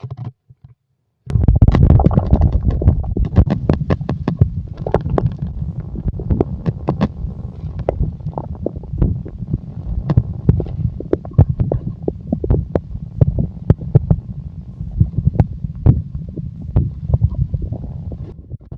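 Human stomach growling: a loud, continuous low rumble that starts suddenly about a second in, full of rapid gurgling, crackling clicks.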